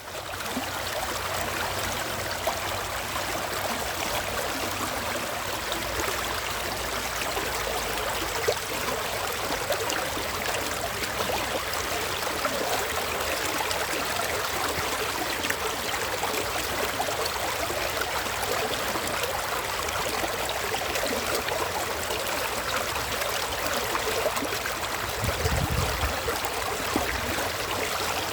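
Stream water flowing and trickling steadily, a dense, even rush with small splashes, and a brief low rumble about three-quarters of the way through.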